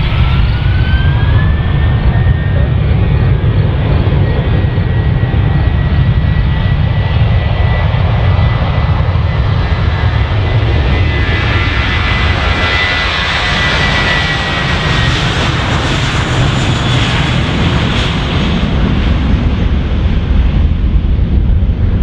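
Jet airplane engines running as the aircraft passes, over a steady low rumble. A turbine whine rises in pitch over the first couple of seconds and then holds steady. The roar grows brightest about two-thirds of the way through and then fades.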